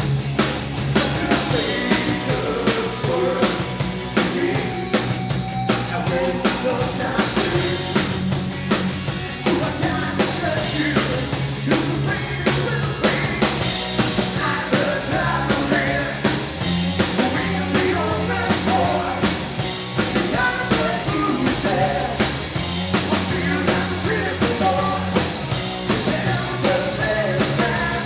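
Live rock band playing a hard rock song: electric guitars, bass and a drum kit keeping a steady beat, with a singer singing over it.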